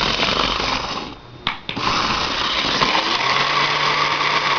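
HO-scale model locomotive run while derailed, its motor and wheels making a harsh buzzing, grinding noise in two stretches, one about a second long and one about three seconds long after a short pause. The noise is the sign that not all of its wheels are on the rails.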